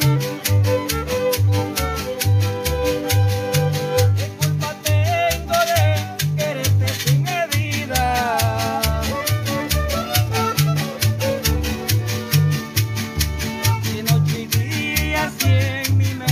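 Small string band playing a lively tune: two violins carry the melody over an evenly strummed guitar and a bass line of low notes that alternate back and forth.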